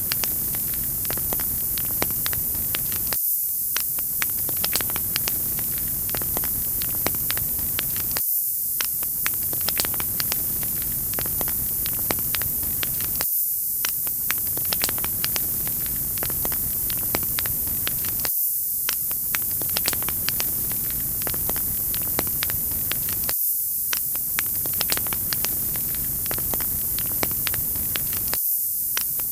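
Wood fire crackling, with frequent sharp pops over a steady bright hiss; the same few seconds repeat about every five seconds.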